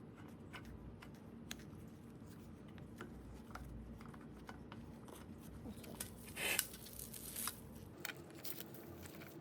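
Faint scattered clicks and a short scraping rustle about six and a half seconds in, from a bicycle pedal being screwed into its crank arm by hand.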